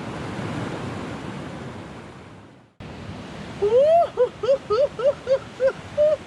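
Rushing water of river rapids, swelling and then fading until it cuts off suddenly a little under three seconds in. After a short pause comes a quick run of about nine short pitched notes, each rising and falling.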